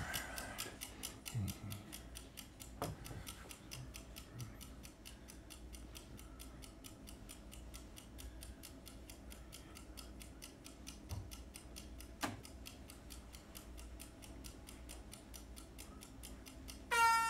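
Countdown-timer sound effect: fast, even clock ticking, several ticks a second. A bright chime sounds at the very end as the time runs out.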